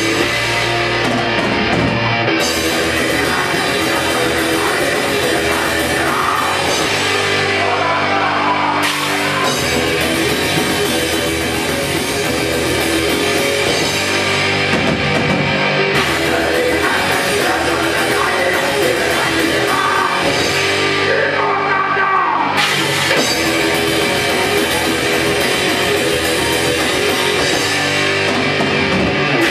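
A heavy metal band playing live and loud: distorted electric guitar over a drum kit, the high cymbal wash dropping out and coming back a few times as the song moves between sections.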